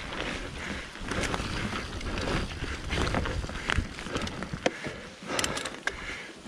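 Mountain bike being pedalled along a forest trail: tyres rolling over dirt and roots with a low rumble, and irregular clicks and rattles from the bike.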